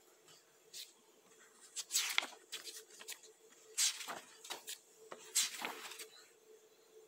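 Paper pages of a book being turned by hand: three soft rustling swishes about two seconds apart, with lighter handling rustles in between.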